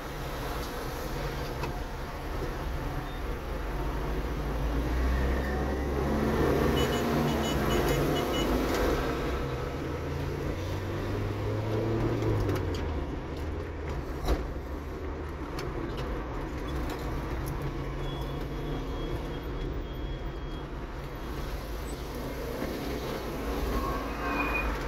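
City street traffic heard from a car: a steady low engine rumble and road noise, with cars and a motorcycle passing. A low engine note rises and falls around the middle, and there is one sharp click a little after halfway.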